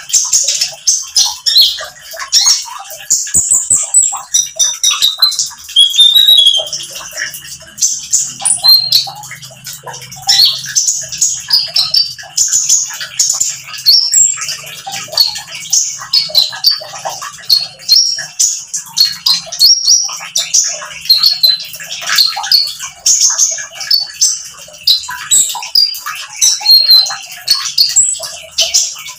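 Caged konin sunbird singing continuously in rapid, high-pitched twittering bursts: the fast 'nembak' song that keepers play as a lure to set other konin singing.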